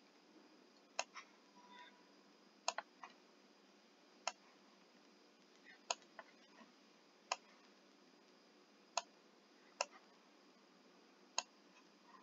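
Computer mouse clicking: about a dozen single sharp clicks spaced one to two seconds apart, a few in quick pairs, over faint background hiss.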